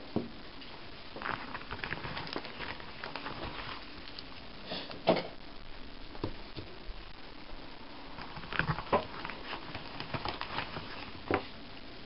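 Rustling and crinkling of hands handling wrapped chocolate bars over a plastic-coated tablecloth, with sharper knocks as items are picked up and set down, about five, nine and eleven seconds in.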